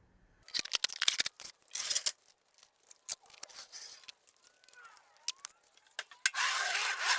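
A series of sharp clicks and knocks with short bursts of scraping, rustling noise, the longest one near the end, like objects being handled and moved.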